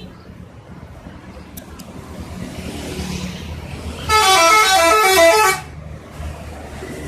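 A bus's 'telolet' multi-tone musical horn plays a quick melody of several alternating notes for about a second and a half, starting about four seconds in, over a low engine rumble.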